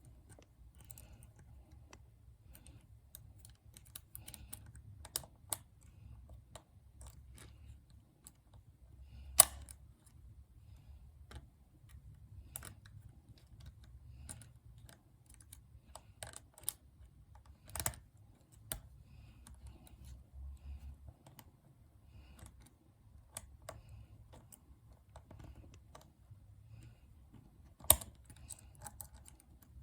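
Lock pick and tension tool working inside an Abus 234 60mm lever padlock: irregular small metal clicks and scrapes as the levers are probed and lifted, with three louder clicks about nine, eighteen and twenty-eight seconds in.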